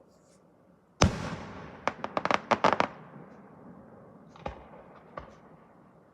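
Fireworks going off: one loud bang about a second in, then a quick string of about ten sharp crackling pops, and two lone pops later on.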